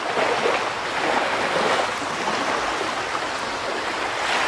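A steady rushing noise like running water, an even hiss with no pitch or rhythm.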